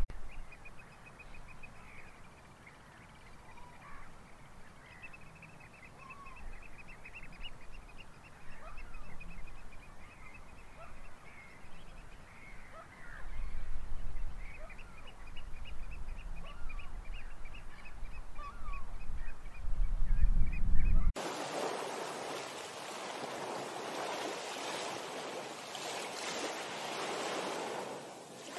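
Birds calling in quick runs of short high notes, with wind gusting on the microphone now and then. About two-thirds of the way through, the sound cuts abruptly to the steady wash of small waves lapping at the water's edge.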